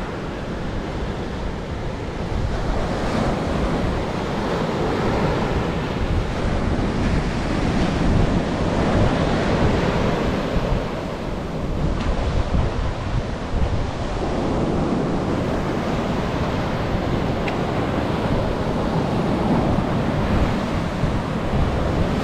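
Ocean surf breaking and washing up the sand in slow swells, with wind buffeting the microphone.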